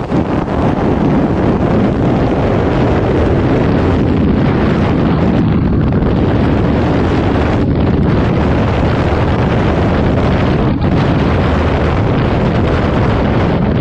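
Freefall wind rushing over a skydiver's camera microphone: a loud, steady roar of noise, with a few short dips in the hiss.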